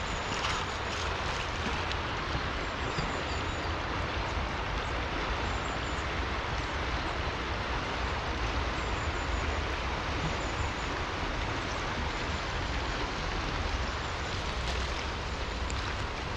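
A rushing river: a steady, even roar of flowing water.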